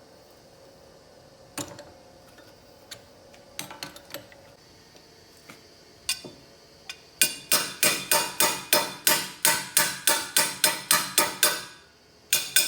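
Rapid knocking on a scissor-lift brake cylinder being taken apart: a few scattered clicks and clunks, then about twenty quick sharp strikes, four to five a second, lasting around four seconds, with one more strike near the end.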